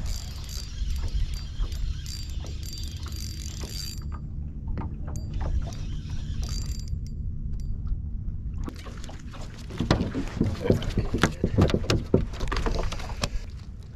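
Spinning reel being cranked as a fish is reeled in, with a fine whirring for the first few seconds. Then a quieter spell, and a run of knocks and thumps near the end as the fish is landed and flops on the boat's deck.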